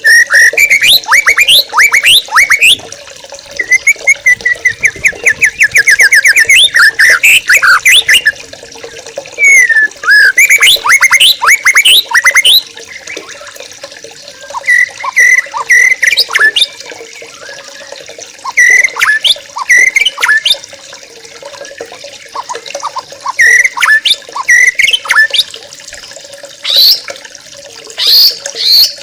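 A flock of young wild yellow-vented bulbuls chattering: bursts of rapid chirps and short rising and falling phrases, with brief pauses between them. The longest and densest bursts come in the first half; shorter phrases follow.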